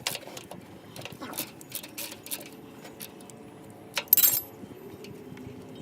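Hand tools clinking and clicking against metal during work under a car, a run of small sharp clicks, then one short, loud, harsh rasp about four seconds in.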